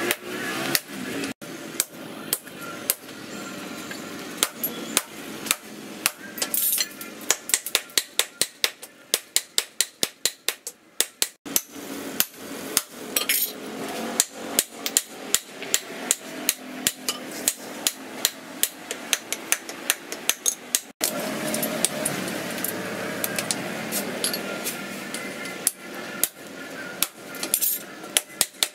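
Blacksmith's hammer blows on red-hot steel laid on a cylindrical steel post anvil: sharp ringing strikes, two to four a second, while an axe head is forged. The strikes come in runs broken by sudden cuts. A steady background rush is under the last third.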